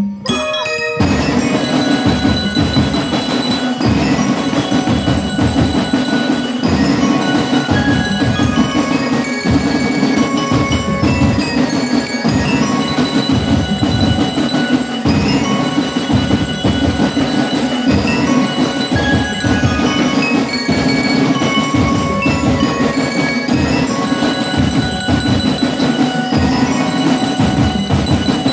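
Marching drum-and-bell corps playing: glockenspiels ring out a melody in quick rising and falling runs over a dense, steady pattern of snare and bass drums.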